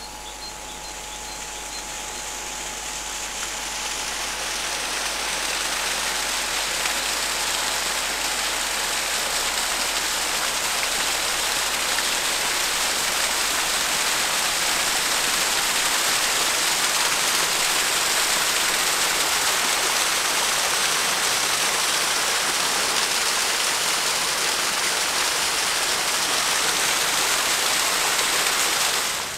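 Small cascade of water splashing down a mossy bank, a steady rushing hiss that swells over the first few seconds and cuts off abruptly near the end.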